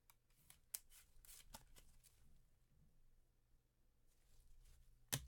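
Trading cards being handled in a quiet room: a few soft slides and sharp clicks of cards, with the loudest click just before the end.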